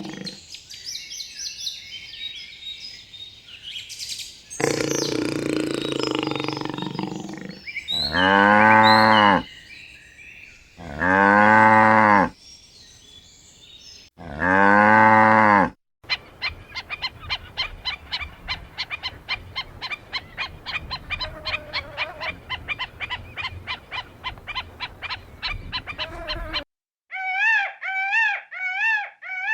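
A cow mooing three times, loud drawn-out calls each lasting about a second and a half. After them comes a long run of rapid, repeated short animal calls, several a second, and near the end a few brief wavering high calls.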